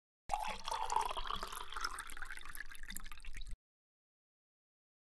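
Wet slurping, gobbling sounds of someone eating scraps greedily, lasting about three seconds and cutting off suddenly.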